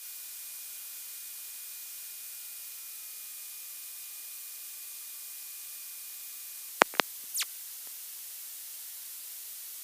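Steady electronic hiss of static with faint steady tones that stop about two-thirds of the way through, followed by two sharp clicks and a third just after.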